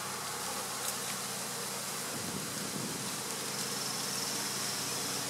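Honey bee colony buzzing steadily around an open hive, many bees flying and crawling over the lifted frame and boxes.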